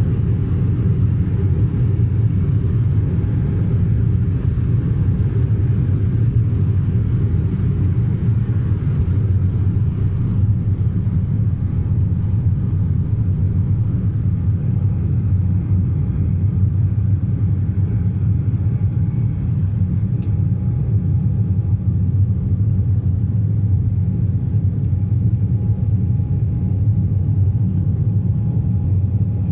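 Steady low rumble of a vehicle in motion, unchanging throughout, with a faint steady whine above it.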